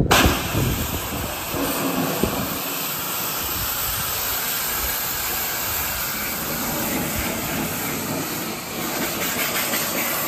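Pressure washer spraying a steady jet of water onto weathered wood, rinsing off wood restorer and the black grime with it.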